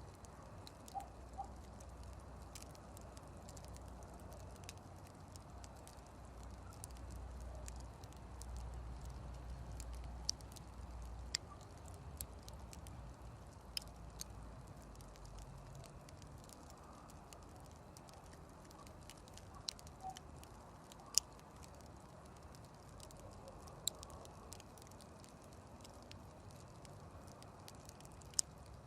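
Campfire crackling, with irregular sharp pops and snaps of burning wood every second or two over a soft hiss; a low rumble runs through the first half.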